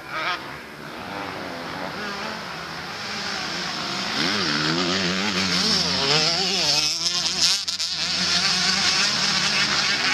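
Motocross motorcycle engines racing, their pitch rising and falling over and over as they rev, getting louder about three seconds in as the bikes come closer.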